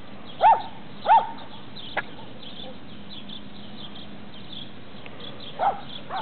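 A dog barking: two sharp barks close together about half a second in, then another near the end.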